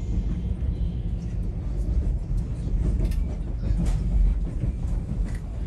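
Passenger train running, heard from inside the carriage: a steady low rumble with a few light clicks scattered through it.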